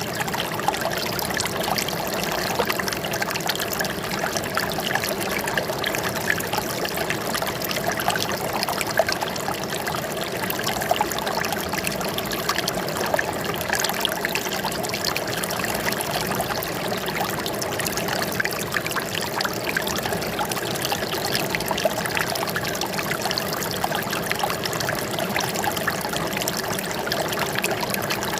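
Running water trickling and splashing steadily, like a small stream or fountain flowing over rocks, with a busy pattering texture and no letup.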